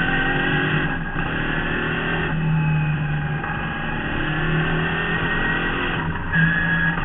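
A 1972 Marcos GT's V8 engine running hard under acceleration, heard from inside the cockpit, its note breaking briefly a few times as the driver changes gear.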